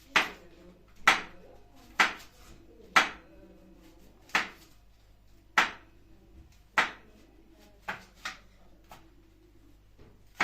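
Knife chopping onions and peppers on a cutting board: slow single strokes about once a second, around nine of them, the last few lighter.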